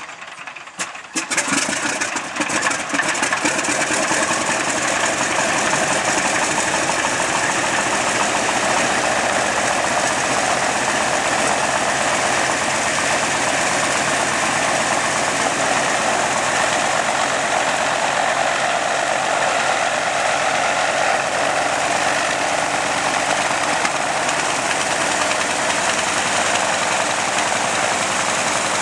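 Antonov An-2's nine-cylinder radial engine catching in the first couple of seconds, then running steadily and loudly just after its start.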